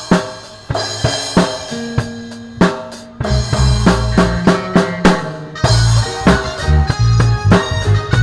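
Music with a drum kit: separate drum hits over held notes at first, then a bass line comes in about three seconds in and the full beat carries on.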